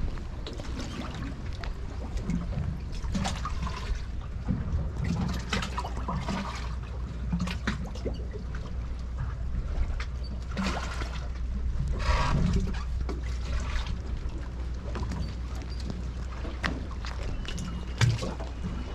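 Harbour water lapping and trickling against moored boat hulls and the concrete quay, in small irregular splashes, with a louder slosh about two-thirds of the way through. A steady low rumble runs underneath.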